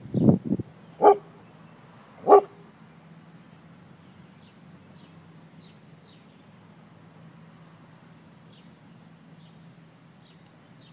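Dog barking about four times in the first two and a half seconds, two quick low barks followed by two sharper ones, then falling silent. These are warning barks at a stranger.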